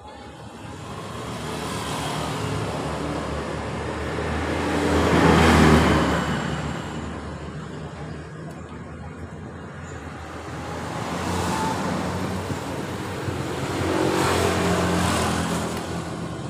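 Passing road traffic: vehicles with running engines go by one after another, the loudest a little over five seconds in, with two more passing in the second half.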